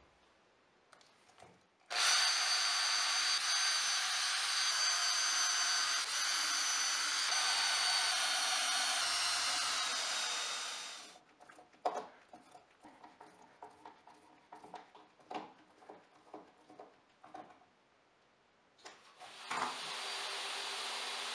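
Cordless drill motor running steadily for about nine seconds, its whine dipping slightly in pitch near the end as it drives into an oak sled runner, then winding down. Scattered clicks and knocks of handling follow, and near the end the DeWalt DWE7491RS table saw's motor starts up and runs steadily.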